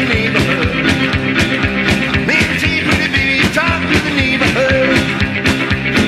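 Rockabilly band recording in an instrumental passage: electric guitar lines over a fast, steady drum and bass beat.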